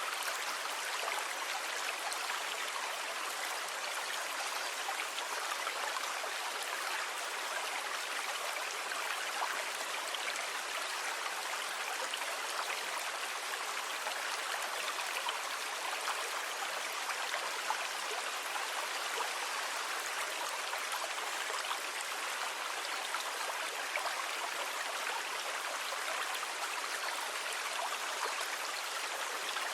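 Steady rushing of water, offered as sea sound: an even hiss with no rise and fall of separate waves and no deep rumble.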